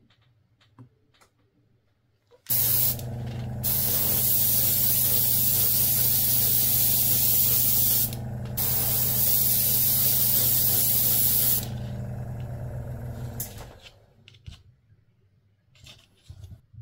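Paint sprayer hissing in two long spells, broken by a short pause about 8 s in, over the steady hum of a small motor that runs on for about two seconds after the spraying stops.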